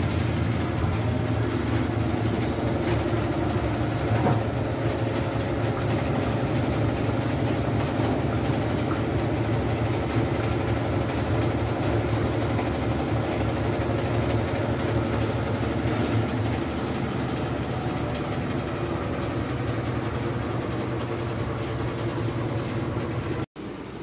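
Whirlpool top-loading washing machine running with a steady, loud motor hum, easing slightly about two-thirds of the way through.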